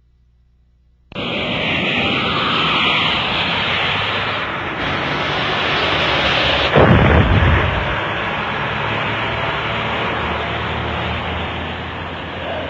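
A loud rushing, rumbling noise that starts suddenly about a second in, with one deep boom about seven seconds in, the loudest moment, followed by a steady low rumble.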